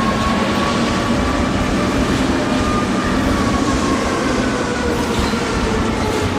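Tornado roar: a steady, dense rush of wind and rumble, with a warning siren's slow rising and falling wail faintly beneath it.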